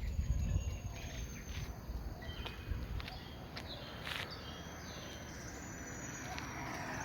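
Outdoor ambience: scattered short bird chirps and a thin, steady high insect buzz over a low rumble, with a brief louder bump about half a second in.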